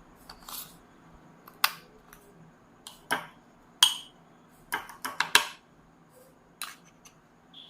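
A spoon clinking and scraping against a glass cup and bowl as beaten instant-coffee mix is scooped into the cup: a dozen or so irregular sharp taps, a few ringing briefly.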